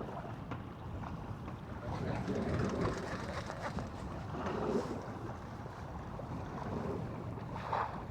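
Wind buffeting the microphone over water sloshing around a small fishing boat. The sound is a steady rumbling hiss that swells a little around two and five seconds in.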